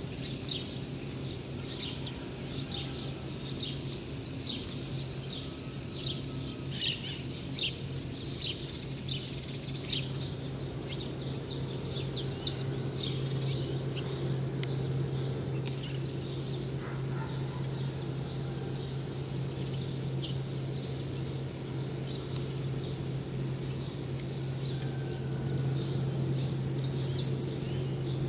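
Dawn chorus of many small birds chirping, a dense run of quick, high, downward-sweeping chirps that is busiest in the first half, over a steady low hum.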